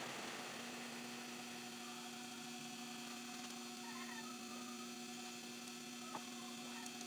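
Steady low electrical hum in a machine shop, with a few faint chirps around the middle and a single short click about six seconds in.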